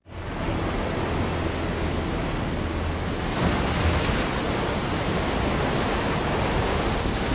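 Typhoon wind and storm-surge floodwater rushing past, with spray: a loud, steady rush of noise.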